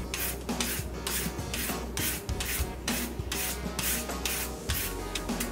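A serrated papaya shredder scraping along the side of a raw green papaya, cutting it into thin strips. The strokes come in a steady rhythm of about two a second.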